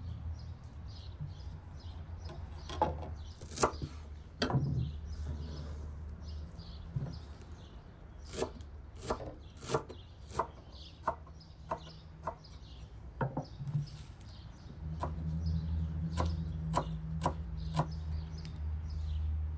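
Kitchen knife chopping fresh dill on a wooden cutting board: sharp knocks of the blade on the wood, a few spaced ones early, then quicker runs of about two a second. Small birds chirp in the background.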